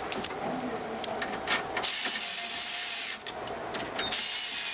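Cordless electric screwdriver running twice as it drives the server lid's chassis screws, a steady whirring hiss of about a second each time, the first starting about two seconds in and the second near the end. Light clicks from the metal lid being seated come before.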